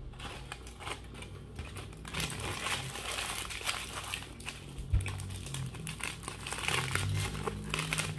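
Aluminium foil burger wrapper being crinkled and crumpled by hand, a dense run of crackles that thickens from about two seconds in. A single thump about five seconds in.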